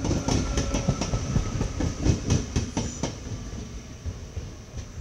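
NS VIRM double-deck electric train rolling into the station on the track beside the platform, its wheels clattering in quick clicks. After about three seconds the clatter thins out and fades.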